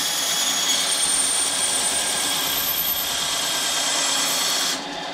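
A power tool running steadily with a high whine as it cuts through the aluminum rear spar web of a Bearhawk wing, easing off near the end.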